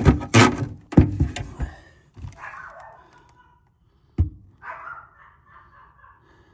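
Heavy thunks and knocks from handling the sheet-metal cabinet and panels of a furnace: a cluster of strokes in the first two seconds, then a single sharp knock about four seconds in.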